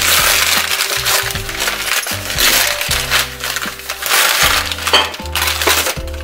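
Thin packing wrap crinkling and rustling as it is pulled and crumpled off a ceramic pumpkin-shaped jar, over background music. The crinkling stops about six seconds in.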